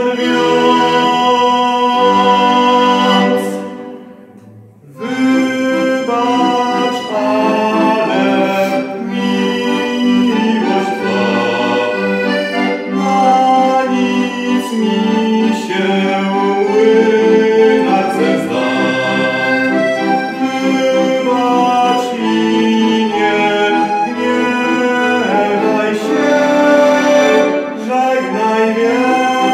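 Piano accordion playing a song, with a young man singing along to it. The music breaks off briefly about four seconds in, then carries on.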